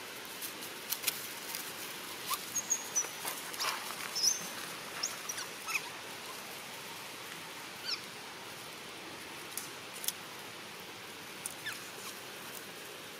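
Several brief, high animal squeaks and chirps over a steady outdoor hiss, with scattered light clicks and crackles of dry leaves. Most of them come in the first half.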